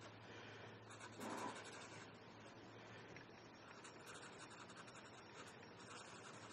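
Faint scratching of a Prismacolor marker tip stroking across coloring-book paper, over a low steady hum. A short, slightly louder sound comes about a second in.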